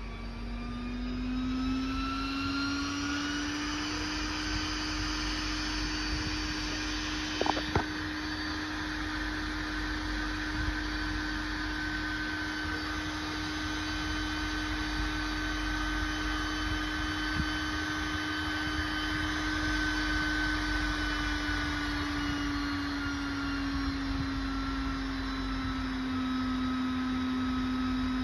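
Exicom electric-vehicle battery charger running on a resistive load test, its cooling fan whirring with a steady hum. The hum rises in pitch over the first few seconds as the fan speeds up, and eases back down a little after two-thirds of the way through. Two brief knocks about seven and a half seconds in.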